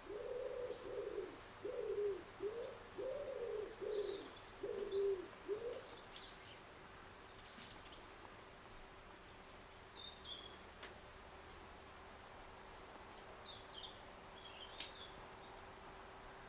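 A pigeon cooing, a series of about eight low coos over the first six seconds, with small birds chirping faintly and high-pitched throughout.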